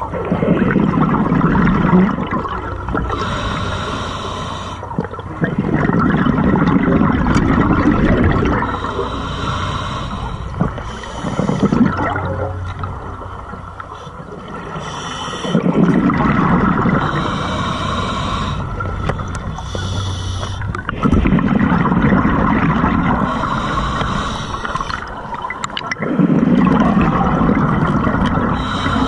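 Scuba diver breathing through an open-circuit regulator underwater: a hiss on each inhale, then a burst of bubbling exhaust on each exhale, repeating about every five seconds.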